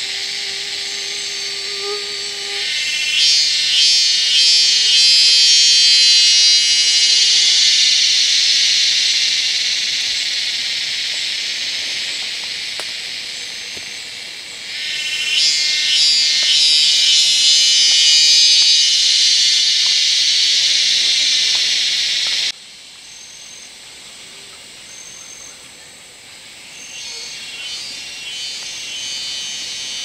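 Cicadas in a loud, shrill buzzing chorus. It swells in about three seconds in, slowly fades, swells again halfway through, and cuts off abruptly near the end, leaving fainter insect buzzing. A low, steady hooting tone sounds in the first couple of seconds.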